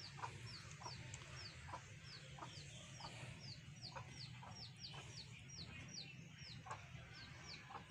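Chickens in the yard: a faint, steady run of short high falling peeps, two or three a second, with a few soft low clucks among them.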